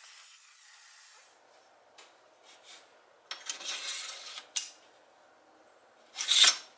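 Small metal clinks and scraping as a copper habaki (blade collar) is worked and slid along a steel katana blade on a metal workbench, with a louder, brief scrape near the end.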